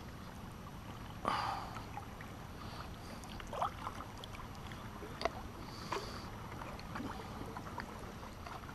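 Kayak paddle working in the water: a splash about a second in, then a few faint ticks, over a low steady rush of water and wind.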